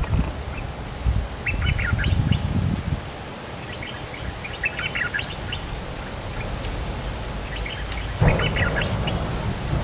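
Bulbul singing in three short bursts of quick, bubbly notes, spaced a few seconds apart, over low rumbling noise.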